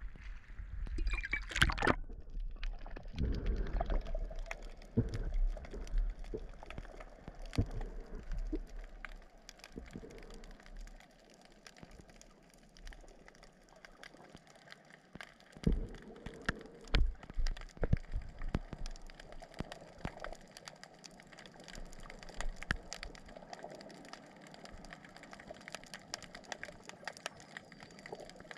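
A camera plunges into seawater with a splash about a second or two in, then underwater gurgling and low rumbling from the sea, with scattered thumps and faint clicks as the camera moves beneath the surface.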